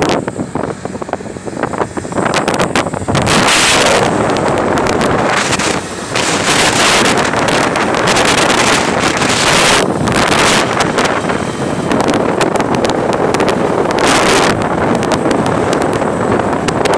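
Heavy wind buffeting on a phone microphone aboard a motorcycle moving at highway speed: a loud, rushing roar that surges in irregular gusts.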